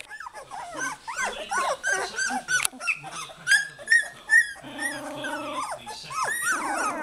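A litter of very young goldendoodle puppies whining and squealing together, many high, arching cries overlapping, with a lower, longer cry about five seconds in. The pups are crying for their mother.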